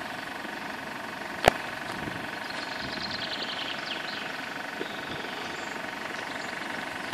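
Level crossing warning alarm sounding steadily while the barriers are down, with one sharp knock about a second and a half in.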